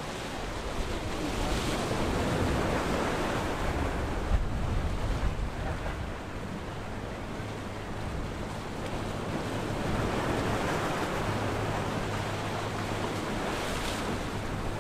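Waves churning and wind buffeting the microphone. From about halfway through, the low steady drone of the approaching 80-foot Viking sportfishing yacht's diesel engines comes in and grows stronger.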